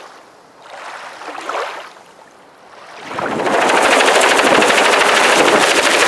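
A two-bladed light helicopter hovering close overhead. Its rotor chop comes in about three seconds in and stays loud and steady: a fast, even beat over a dense rushing noise. A few soft swishes come before it.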